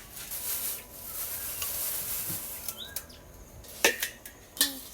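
A utensil stirring and scraping in a dish, followed by a few sharp clinks of cutlery on tableware near the end.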